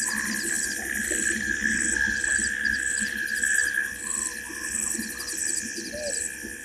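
Night-time chorus of insects: a high chirp repeating about twice a second over a steady high drone, with a few short, faint calls from other night animals.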